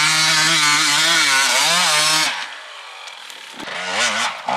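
Enduro motorcycle engine running at high revs, its pitch wavering slightly, then dropping off about two seconds in. Near the end, a quieter engine revs up and down briefly.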